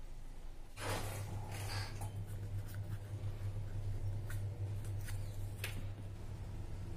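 Hands handling small plastic and paper parts on a tabletop: light rustles and scattered small clicks. A steady low hum comes in suddenly about a second in.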